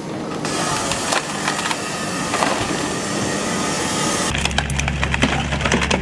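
Wood splitting and splintering under a hydraulic splitter, a dense crackle of fibres tearing apart. A little over four seconds in, a steady low engine hum takes over, with sharp cracks of wood breaking on top of it.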